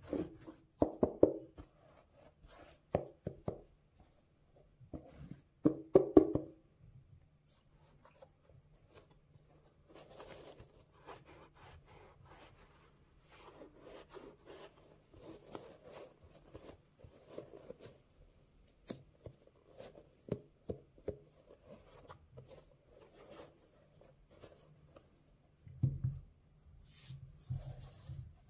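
Cotton-gloved hands handling Nike Air Max Penny sneakers: sharp knocks and taps in the first several seconds, then softer rubbing and rustling, and a dull thump near the end. A cloth rubs over the rubber sole, and a lace is pulled through the eyelets.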